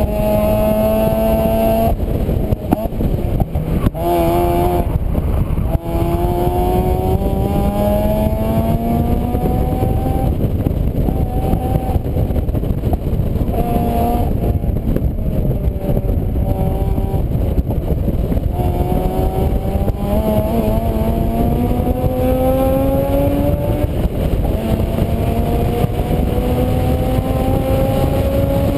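A vehicle engine accelerating through the gears. Its pitch climbs for several seconds, drops at each shift and climbs again, several times over, under a heavy low rumble of road or wind noise.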